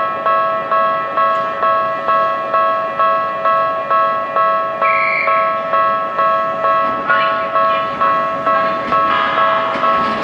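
Japanese level-crossing warning bell ringing steadily, about two strikes a second, warning of an approaching train. A brief high tone sounds about five seconds in. In the last second the noise of the approaching train rises under the bell.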